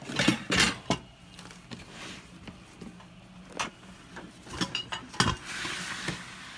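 Objects being handled and shifted about: a series of sharp knocks and clatters, with a stretch of rustling near the end.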